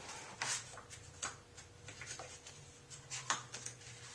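Pages of a paperback picture book rustling as it is handled and turned: a few soft, short rustles and one sharper crackle about three seconds in.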